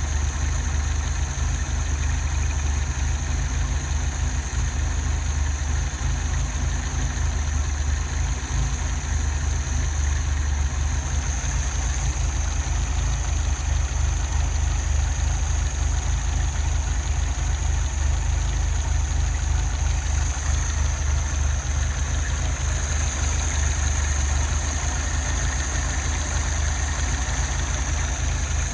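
1978 Fiat 124's four-cylinder engine idling roughly, a steady low-pitched run with an uneven, jittery beat.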